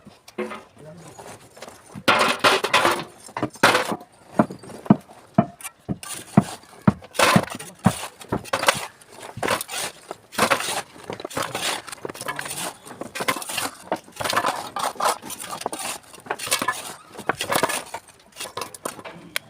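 Broken red brick pieces clattering and scraping as they are worked through by hand, a run of irregular knocks and gritty scrapes that starts about two seconds in.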